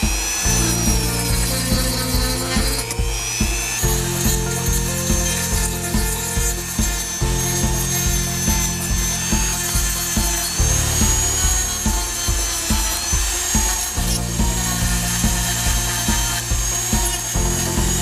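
Dremel rotary tool spinning a sanding drum against the cut edge of a plastic waste pipe: a steady high whine that wavers slightly, with a rasping rub of sanding. Background music with a steady beat plays under it.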